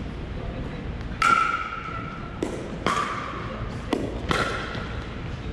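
Pickleball rally: paddles striking the hollow plastic ball with sharp pops, about five hits over four seconds. Three are louder and carry a short ringing ping.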